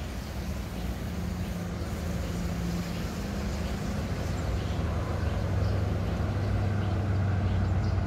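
Diesel locomotive of an approaching train, a low steady engine drone that grows gradually louder as it nears.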